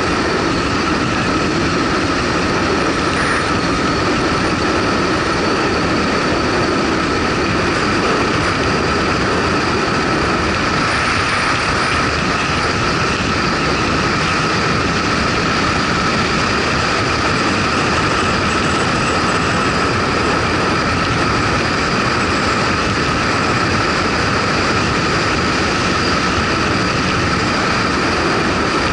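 Motorcycle cruising at a steady speed: the engine's drone, steady and unchanging, under wind and road noise.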